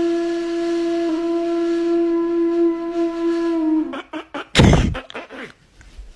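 A single steady held note with overtones, like a wind instrument, breaking briefly about a second in and dropping away just before four seconds. Then a sudden short, loud burst of noise at about four and a half seconds, followed by a few faint sounds.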